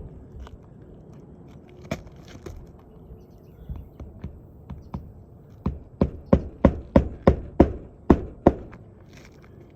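A hammer striking roofing nails into a replacement asphalt shingle: about nine sharp blows in quick succession, roughly three a second, starting about halfway through, after a few lighter scattered knocks and scuffs.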